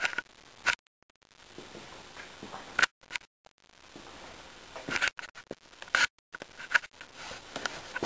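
Steady rush of air from a running 1950s Lasko box fan driven by a replacement 1/6 hp GE motor. The sound cuts out briefly several times, and sharp scrapes and knocks of the handheld camera come through.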